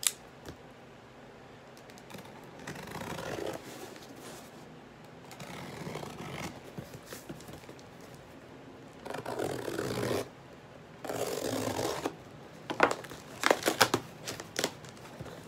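A cardboard shipping box being opened: the packing tape is cut and torn and the flaps scraped open, heard as several separate bursts of scraping and tearing about a second each. Near the end, a quick run of sharp crackles as paper is pulled from the box.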